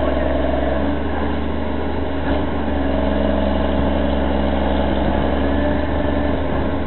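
A truck engine running steadily and loudly, its pitch shifting slightly about a second in and then holding level.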